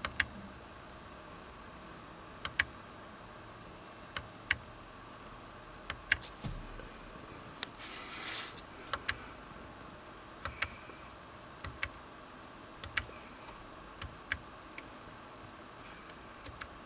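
Plastic buttons of a Mercedes COMAND NTG 2.5 controller clicking as they are pressed and released to step through menu pages. The clicks come every second or two, often in quick pairs. A brief soft hiss comes about eight seconds in.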